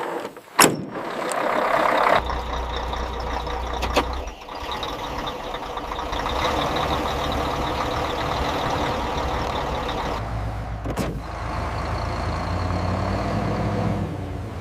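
Heavy truck engine running with a steady low rumble, broken by a few sharp knocks: one just after the start, one about four seconds in and one near eleven seconds.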